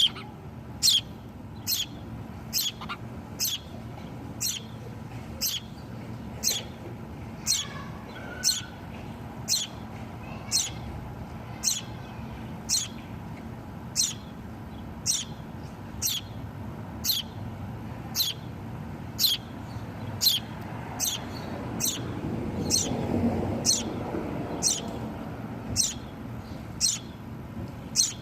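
A baby bird chirping over and over: short, high, downward-sliding peeps at a steady pace of about one to two a second. A soft rustle or handling noise rises under the chirps about three quarters of the way through.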